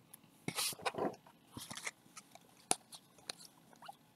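Baseball trading cards being handled and sorted: a few short swishes of card sliding against card, with sharp little clicks.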